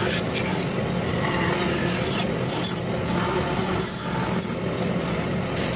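Vertical band saw running and cutting through a small block of wood: a steady rasp of the blade in the wood over the saw's low hum.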